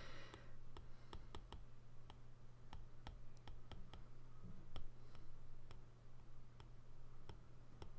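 Stylus tip tapping on a tablet's glass screen while writing by hand: an irregular run of faint clicks.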